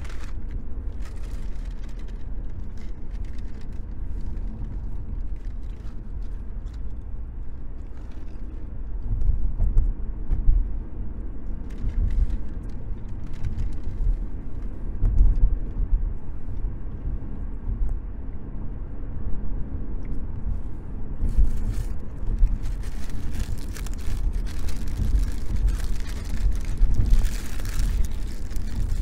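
Low road and engine rumble inside a moving car's cabin, surging louder at times, with light paper rustling near the end.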